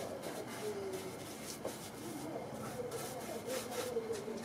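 A paintbrush stroking linseed oil onto the wooden staves of a half wine barrel: a repeated rubbing swish of bristles on wood, several strokes in quick succession.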